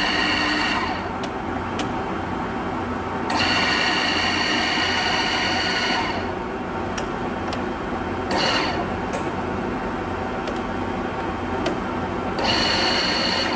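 Engine lathe's gearbox humming steadily while the carriage's rapid-traverse motor whines in four bursts as the traverse lever is worked, the longest nearly three seconds, with light clicks in between.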